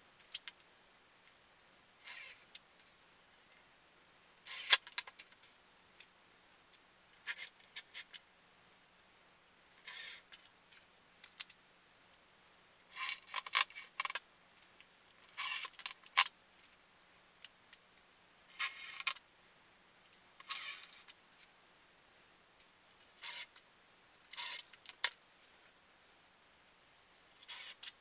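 Cordless drill run in about a dozen short bursts, each under a second, driving small screws into a plywood panel, with small clicks of handling between the bursts.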